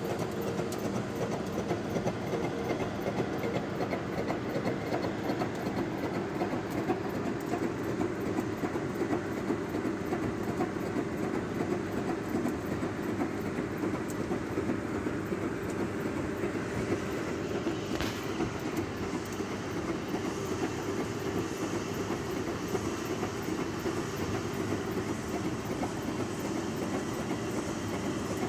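Face mill with carbide inserts on a horizontal milling machine cutting the edge of a thick steel plate: a steady, rapid clatter of the inserts biting the metal, with one sharp tick about two-thirds of the way through.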